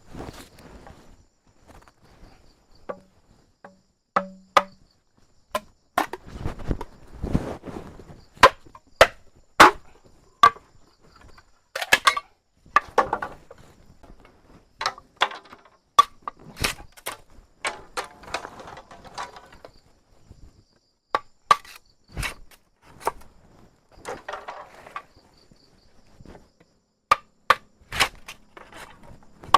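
Irregular, sharp chopping or whacking strikes of a hand tool, a few seconds apart and sometimes in quick runs, with rustling in between. Insects buzz faintly and steadily in the background.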